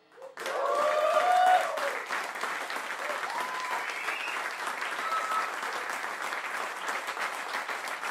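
Small studio audience breaking into applause about a third of a second in, with a few shouts of cheering at first, loudest in the first second or two, then steady clapping.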